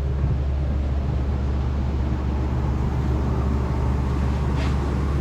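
Steady low mechanical drone with a faint clink near the end.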